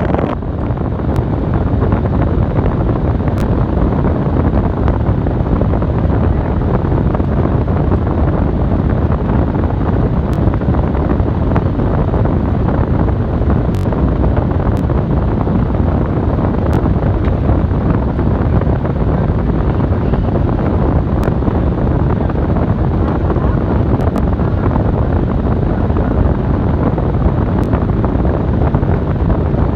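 Loud, steady rushing and rumbling noise, heaviest in the low end, with a few faint sharp ticks scattered through it.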